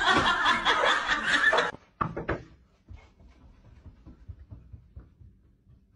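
People laughing and chattering together, cut off suddenly after about a second and a half; then only a few faint knocks and thuds.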